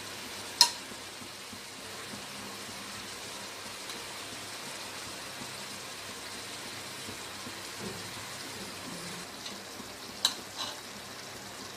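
Chicken and tomatoes sizzling and simmering in a metal pot as the tomatoes cook down soft, a steady hiss. A steel ladle clinks sharply against the pot about half a second in and twice more near the end.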